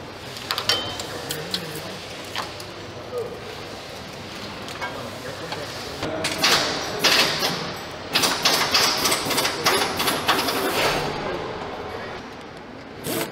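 Assembly-hall ambience: scattered clicks and knocks of parts and tools being handled, growing busier and louder about halfway through, with indistinct voices in the background.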